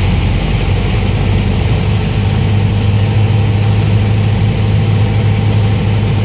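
Single-engine propeller airplane's engine and propeller droning steadily, heard from inside the cockpit on final approach to landing, with a steady hiss over the low drone.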